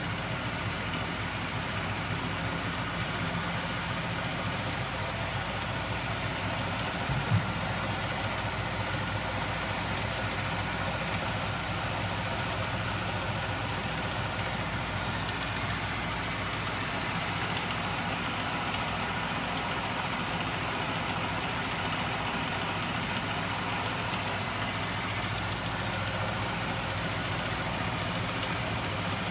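Homemade magnet-driven crankshaft machine running, powered by a small 12 V DC electric motor: a steady mechanical whir and hum from the motor and spinning flywheels and crankshafts. A single sharp knock sounds about seven seconds in.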